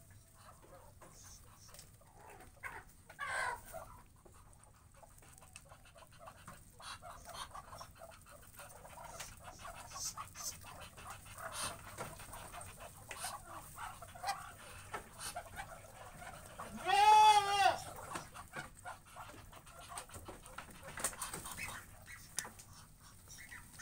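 Soft scattered clicks and rustles from muscovy ducks moving and pecking in their pen. About two-thirds of the way through, one loud call that rises and falls, a goat bleating once.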